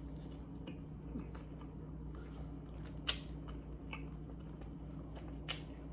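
Close-up chewing of food, with a few short wet mouth clicks and smacks.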